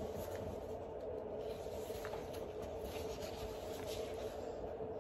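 Light paper rustling as the pages of a picture book are handled and turned, over a steady low hum.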